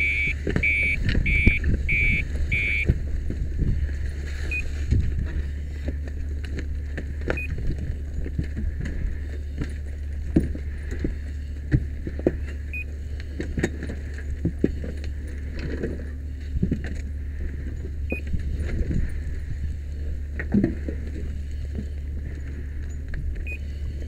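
Firefighter overhauling a charred stud wall with a hand tool: scattered knocks, clatters and scrapes of burned wood and debris being pulled apart over a steady low hum. A run of about six quick high beeps sounds at the start, and single faint beeps follow every few seconds.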